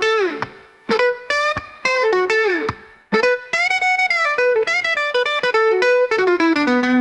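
Background music: an electric guitar playing a melodic lead line in short phrases of plucked notes, with several notes bent downward in pitch.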